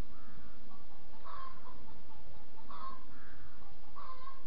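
Short animal calls, three of them a little over a second apart, each a brief pitched cry.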